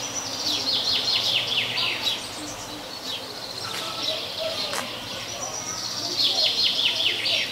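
A songbird singing a quick run of short falling notes, twice: once at the start and again near the end.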